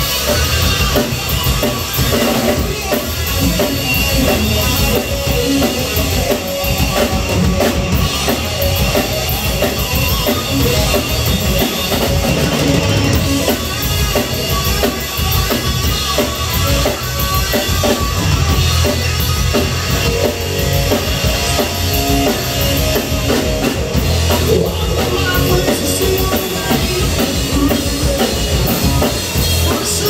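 Live rock band playing loud: electric guitar, electric bass and drum kit.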